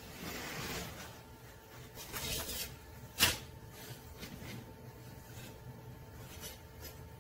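Old steel chainsaw guide bars being pulled from a pile and handled: metal scraping and sliding against metal, with one sharp clank about three seconds in and a few lighter knocks after it. A faint steady hum sits underneath.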